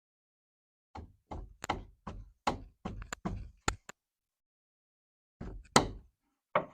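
Knocks and thuds on wooden framing boards: a quick irregular run of about ten blows, then a pause and three more near the end.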